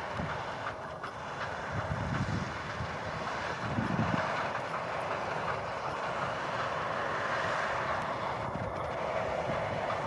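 Case IH Axial-Flow 8230 combine harvester running steadily as it cuts and threshes wheat, with wind buffeting the microphone a few times.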